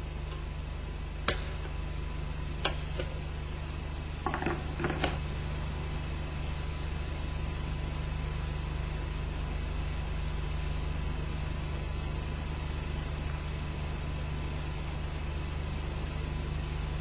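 A few sharp metallic clicks in the first five seconds, a circlip being worked into place with circlip pliers, over a steady low background hum.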